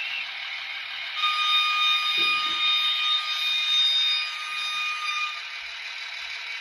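Model railway horn sounding one steady high-pitched tone for about four seconds, starting about a second in, over a steady hiss.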